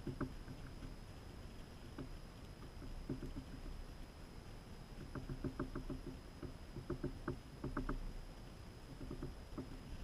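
Male northern cardinal feeding at a hanging seed feeder: soft clicks and taps in short quick runs of several at a time, recurring every second or two as it works at the seeds.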